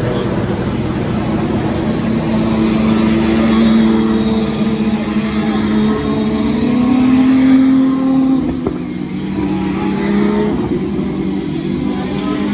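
Formula 2 cars' turbocharged V6 engines passing one after another while braking for a corner. Several engine notes overlap and slide down and up as the cars brake and change gear.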